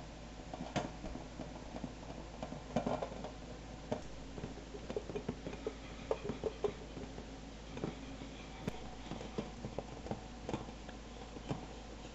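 Irregular light taps and clinks of dishes and utensils being handled in a kitchen.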